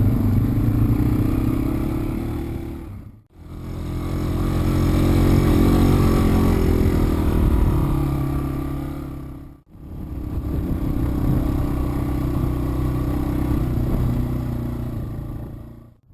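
Yamaha TW200 dirt bike's single-cylinder four-stroke engine running under way, its pitch rising and falling with the throttle. The sound drops out briefly twice, about three seconds in and about ten seconds in.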